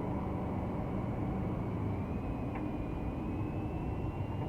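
Car running, heard from inside the cabin: a steady low engine and road noise with a faint whine that slowly rises in pitch.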